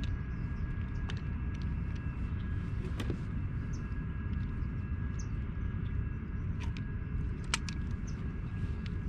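Steady low wind rumble on the microphone, with a few sharp clicks, the loudest near the end, as a plastic fish-lip gripper and a rubber landing net are handled.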